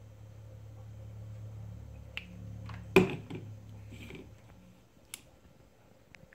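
Handling knocks from a plastic USB portable blender on a kitchen countertop: one loud knock about three seconds in, with a few lighter clicks and taps around it. A low steady hum underneath fades out about a second after the knock.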